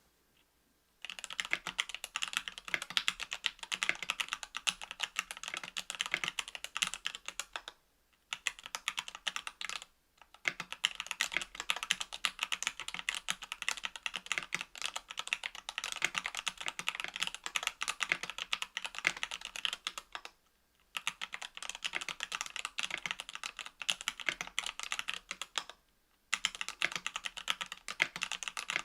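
Continuous fast typing on a mechanical keyboard with stock, unlubricated Equalz C³ Macho 62g linear switches in an aluminium 65% case and plate, with GMK keycaps. It starts about a second in and pauses briefly four times.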